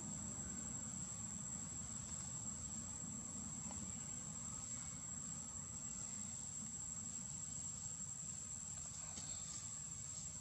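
A steady, high-pitched insect drone on one unbroken note, over a low rumble.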